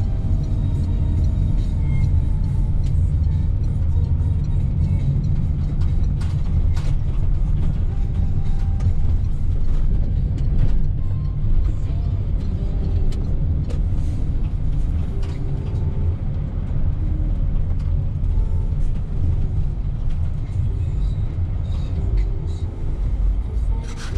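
Car driving along, a steady low rumble of engine and road noise.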